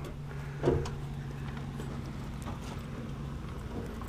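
Footsteps and handling knocks as a removed plastic RV toilet is carried out of a doorway and onto gravel. A steady low hum runs underneath and stops about three and a half seconds in.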